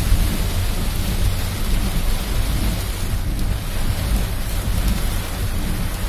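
Heavy rain falling on a car's roof and windshield, heard from inside the cabin as a steady hiss over a low, even rumble.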